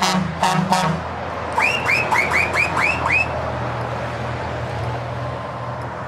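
Heavy truck running along a highway: a steady low engine drone with road noise. Short repeated pitched tones end about a second in, and about two seconds in there are six quick rising chirps.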